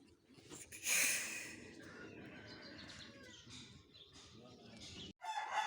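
Faint low-level noise with a brief rustling hiss about a second in; near the end, after an abrupt cut, a rooster starts crowing with a long, slowly falling call.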